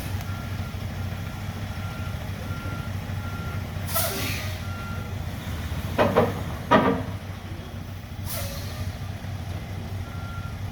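Heavy diesel truck reversing slowly with its engine running steadily and its backup alarm beeping about twice a second. The alarm stops for a few seconds mid-way, and two air-brake hisses and two loud short squeals are heard while it is stopped.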